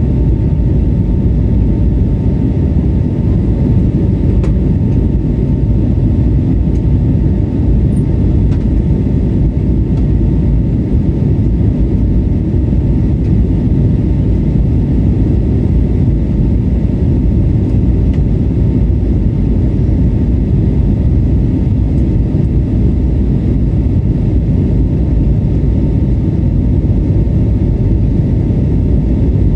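Steady cabin noise inside an Airbus A320neo under engine power: the Pratt & Whitney PW1100G geared turbofans and rushing air give a loud, even low rumble, with a faint steady hum near 1 kHz.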